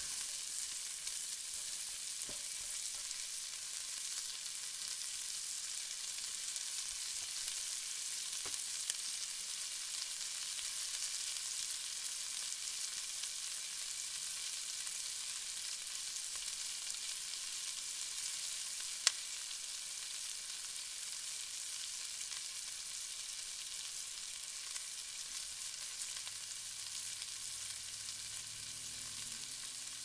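Onions frying: a steady, high-pitched sizzle with occasional small pops, and one sharper pop about two-thirds of the way through.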